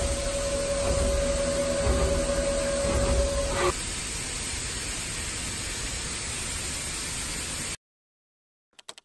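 Haas VF-0E vertical machining center running: a steady tone over an even hiss. The tone stops abruptly about four seconds in, leaving the hiss, which cuts off near the end.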